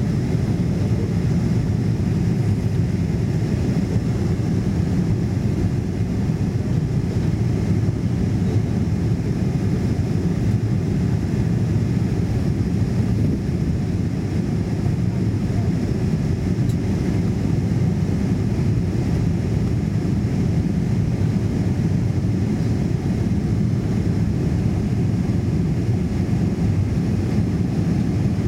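Steady cabin noise of a Boeing 747-400 in its climb-out after takeoff: a low rumble from its four jet engines and the rush of air past the fuselage, heard from inside the cabin.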